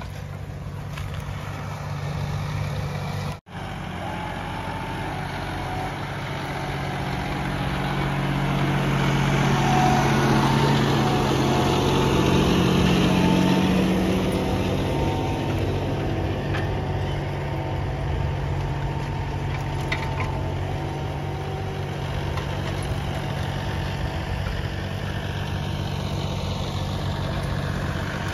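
Engines of a Mahindra Thar 4x4 and a John Deere tractor running under load in a tug of war, a steady low drone that grows louder toward the middle and then holds. The sound cuts out for an instant about three and a half seconds in.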